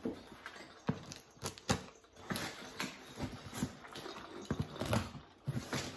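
Scissors cutting through the packing tape on a cardboard box: an irregular run of clicks and short scrapes as the blades work along the seam.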